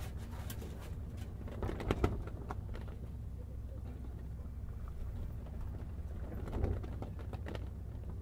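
A sailing ship under way: a steady low drone, with a few short knocks and creaks about two seconds in and again near the end.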